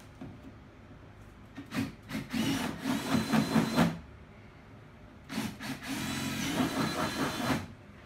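Handheld power drill running in two bursts of about two seconds each, with a short pause between them.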